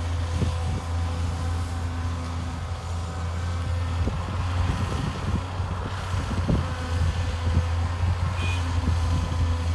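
Caterpillar 320 excavator's diesel engine running steadily under load, with a run of knocks and thuds between about four and seven seconds in as its bucket dumps soil into a dump truck bed. A short high beep sounds near the end.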